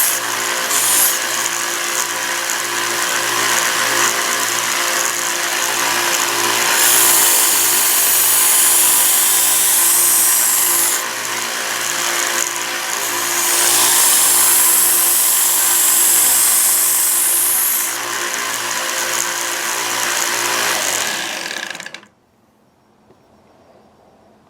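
Harbor Freight 1x30 belt sander running, with a regular low pulsing, as a kitchen knife blade is pressed against the slack part of the belt in two passes that each bring a bright grinding hiss. Near the end the sander is switched off and winds down to near silence.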